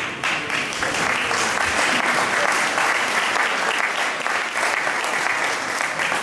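Audience applauding: dense, steady clapping that breaks out suddenly and keeps up at full strength.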